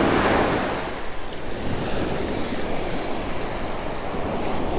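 Surf washing up on the beach with wind on the microphone, loudest at the start. From about two seconds in, a faint high-pitched whine sits on top of it.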